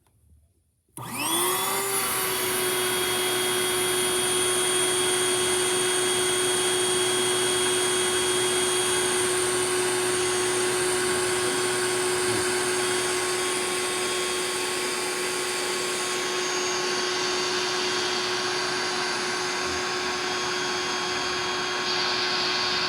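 Built-in electric air pump of an air bed mattress switching on about a second in, quickly spinning up, then running steadily with a constant hum and airy rush as it inflates the bed.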